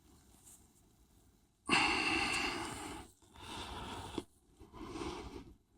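A person's breathing close to the microphone: three breathy exhalations of about a second each, starting a little under two seconds in.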